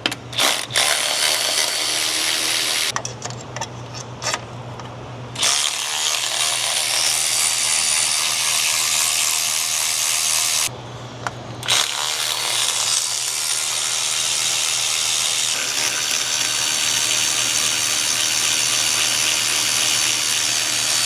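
Power tool running in three long stretches with two short pauses, taking the clamps off the old intercooler boots.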